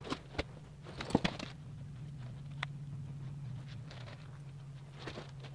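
Faint, scattered soft taps and rustles of hands working the skin and hair around the eyes of a mounted whitetail deer head, with a small cluster about a second in. A steady low hum runs underneath.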